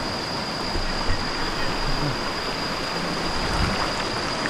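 Shallow river rushing and babbling over boulders, a steady full rush of water, with a thin steady high-pitched tone running above it.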